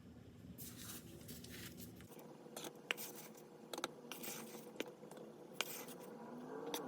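Powdery cornstarch mixed with baking powder being packed and crunched by hand: soft scratchy crunching with scattered sharp crackles, and a short rising squeak near the end as the packed starch compresses.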